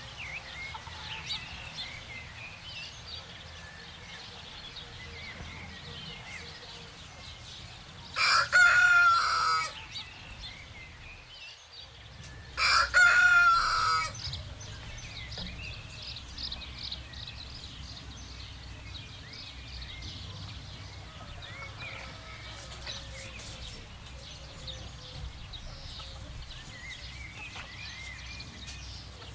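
Rooster crowing twice, each crow lasting about one and a half to two seconds, about four seconds apart. Between and around the crows there is fainter clucking and chirping.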